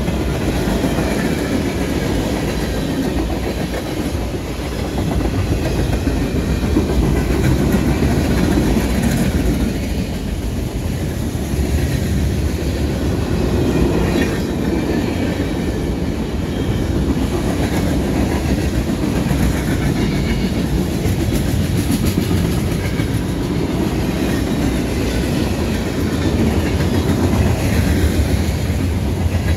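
Freight cars of a CSX manifest train rolling past: a steady rumble of steel wheels on the rails with a rhythmic clickety-clack.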